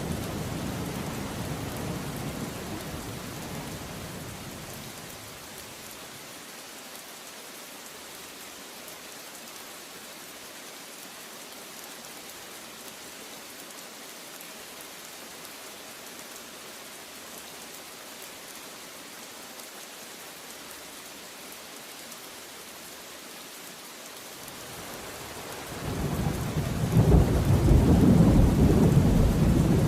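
Heavy rain falling steadily with rolling thunder: a low rumble fades away over the first few seconds, and another swells about 25 seconds in and is loudest near the end.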